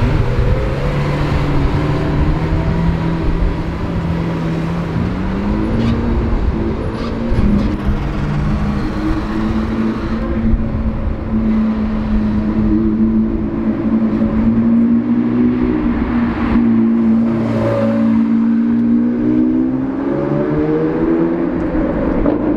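Supercar engine and exhaust running at steady revs. The pitch steps up about five seconds in, holds there, then climbs again near the end as the revs rise.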